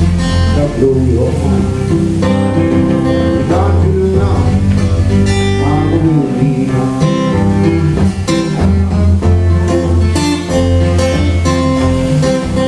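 Acoustic guitar strumming with electric keyboard accompaniment, playing an instrumental passage of a blues-rockabilly tune.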